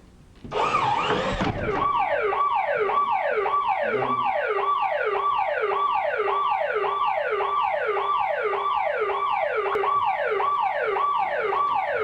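Electronic alarm siren wailing in fast falling sweeps, about two a second, set off by a motion sensor sensing an animal at the bait. It is preceded about half a second in by a brief loud rush of noise.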